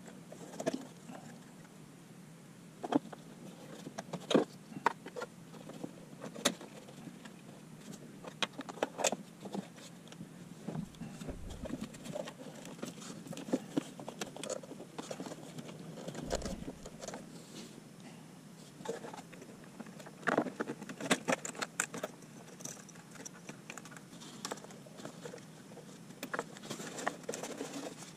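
Irregular small clicks, taps and rustles of hands handling plastic wiring connectors and loose wires behind a van's instrument panel, with two dull low thumps near the middle.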